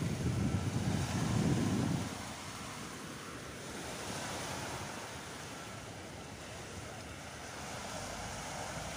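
Small waves breaking and washing up a sandy beach, a steady surf hiss. Wind buffets the microphone with a low rumble for the first two seconds.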